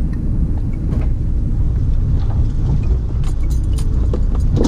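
Ford Fiesta moving slowly across a rough, muddy yard, heard from inside the cabin: a steady low engine and road rumble, with a few knocks and rattles near the end.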